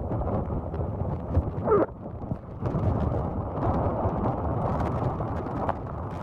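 Hurricane wind and driving rain blowing across the microphone, a steady low rumble of noise. A short falling whistle comes about two seconds in, followed by a brief dip.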